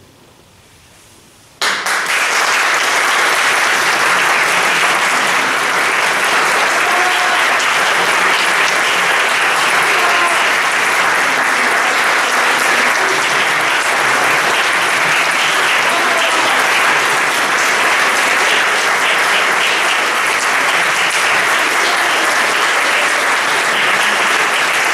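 A brief hush, then audience applause breaks out suddenly about two seconds in and carries on steadily.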